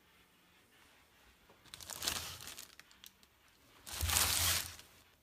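Clear plastic bag crinkling as it is handled, in two bursts: one about two seconds in and a louder one about four seconds in.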